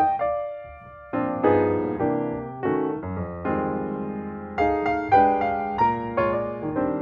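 Background piano music: notes and chords struck in a steady, gentle rhythm, each one fading after it is played.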